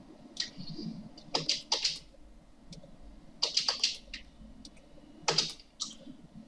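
Computer mouse and keyboard clicks: about ten sharp clicks in irregular clusters, some in quick pairs, over a faint low hum.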